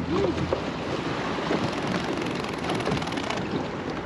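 Wind buffeting the microphone in an open fishing boat on the water, a dense steady rush. A low steady hum cuts off about half a second in.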